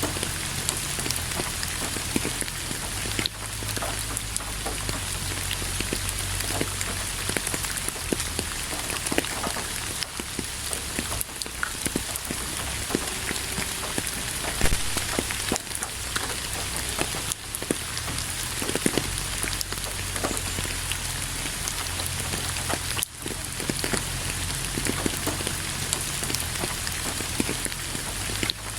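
Steady rain falling, with many separate drops striking a surface over an even hiss and a low rumble underneath.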